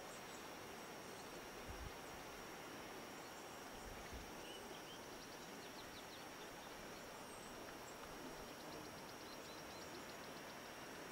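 Faint outdoor background: a steady hiss with a thin, steady high whine, a few faint high chirps about four seconds in, and faint rapid high ticking in the second half.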